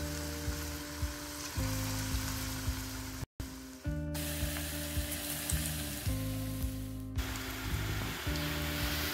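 Cabbage pakoda (gram-flour batter fritters) deep-frying in hot oil, a steady sizzle over background music. The sound cuts out for a moment about a third of the way in.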